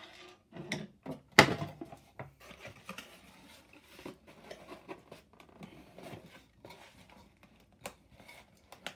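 Cardboard shipping box and paper packing being handled and rustled while a boxed item is lifted out of it, with scattered light clicks and one sharp knock about a second and a half in.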